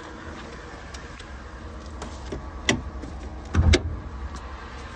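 A 5.3-litre V8 idling with a steady low hum. Two sharp knocks come a little under three seconds in and about a second later; the second is louder and has a deeper thud.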